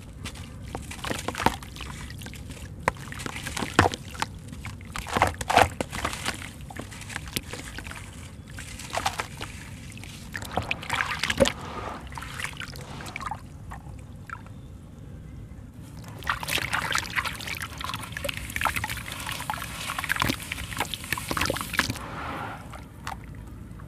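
A wet sand-and-cement ball being crumbled by hand in a basin of water: irregular crunching of the gritty mix with sloshing and dribbling water. Past the middle the hands churn it in the water, giving several seconds of dense splashing.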